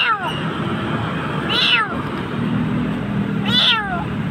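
Frightened kitten meowing in distress: three loud, high-pitched cries about two seconds apart, each falling in pitch.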